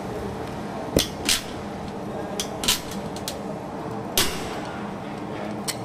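Sharp metallic clicks and clanks, about seven of them and loudest about four seconds in, from handling a galvanized steel metal stud and tools, over a steady low hum.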